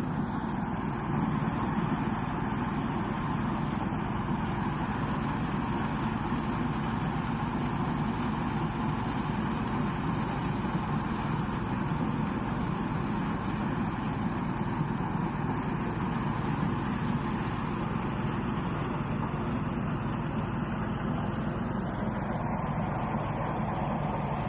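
Corn-harvesting machinery running steadily, a constant engine and machine noise with no breaks.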